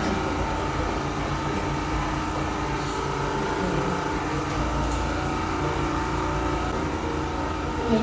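A steady mechanical hum with a low rumble, like an appliance or motor running, that grows a little stronger about halfway through.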